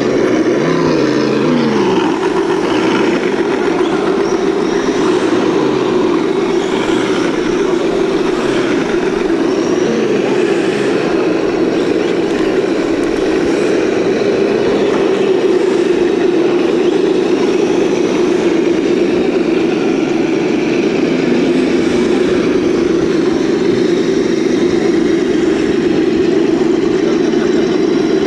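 Axial SCX10 Jeep Cherokee RC crawler's electric motor and gearbox whining steadily as it crawls slowly over rocks, the pitch sliding down in the first couple of seconds as the throttle eases.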